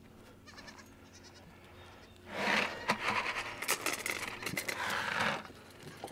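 Goats bleating: after a quiet start, a loud, raspy stretch of bleating of about three seconds begins about two seconds in and stops sharply.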